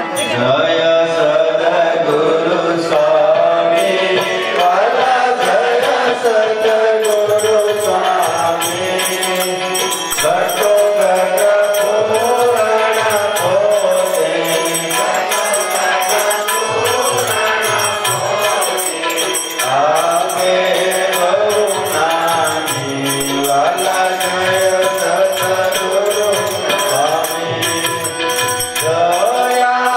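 Hindu devotional chant sung to instrumental music with a steady beat.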